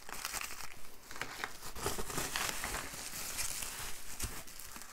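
Bubble wrap and plastic packaging crinkling and rustling continuously as it is handled and moved aside, with many small crackles.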